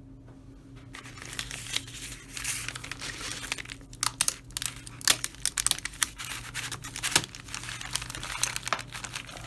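Crinkly material, such as a wrapper or bag, being crumpled and handled, with a run of sharp crackles, over a steady low hum.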